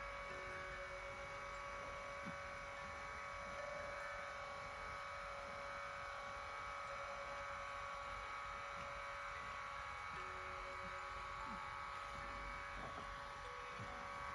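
Lourdes AX-HL168 massage cushion's motor and gearbox running with a steady buzzing whine, the abnormal noise that greasing has not cured. The owner traces it to worn rollers leaving play, so the gear and motor section buzzes under load.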